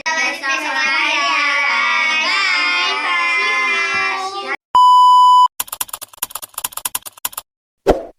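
A high, child-like singing voice for about four and a half seconds, then a loud, steady beep tone lasting under a second, followed by a quick run of clicks and a single thump near the end.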